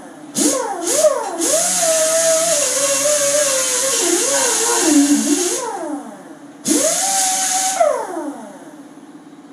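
Air grinder grinding down weld beads on steel: a whine that climbs when the trigger opens and sags as it bites, over a hiss of exhaust air. It comes in two short bursts, a long run of about four seconds, then another burst of about a second near the end.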